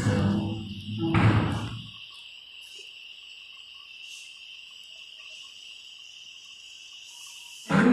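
A steady high-pitched trill, with low rumbling noise in the first two seconds; music cuts in at the very end.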